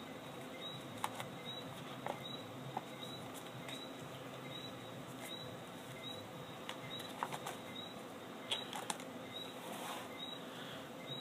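Cardboard packaging being handled: the white cardboard accessory insert of an iPhone box lifted and turned in the hands, giving a few sharp little clicks and a short rustle near the end over a steady faint hiss.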